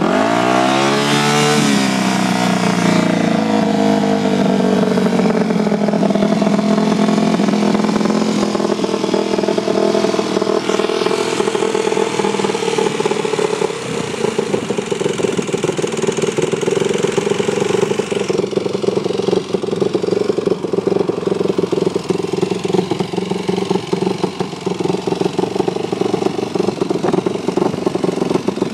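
Yamaha YZ250F four-stroke single-cylinder dirt bike engine, fitted with a Big Gun aftermarket exhaust, starting. It revs up sharply right away, then runs at a fast steady idle. About halfway through it drops to a lower, uneven idle.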